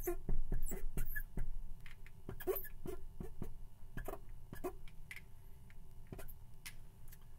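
Marker strokes on a board as an equation is written: a quick, irregular run of short scratches and taps, thickest in the first few seconds and thinning out after.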